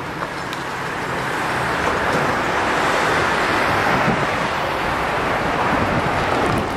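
Road traffic passing close by, a steady hiss of tyres on the road that swells over the first few seconds and then holds.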